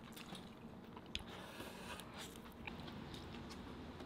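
A person chewing food close to the microphone: soft mouth sounds with scattered small clicks, one sharper about a second in. A faint steady hum runs underneath.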